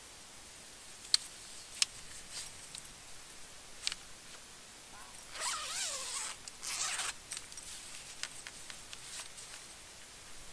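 Zipper on a padded fabric car-window privacy cover being pulled open in two strokes about halfway through, a longer pull then a short one. A few sharp clicks and fabric handling come before the pulls.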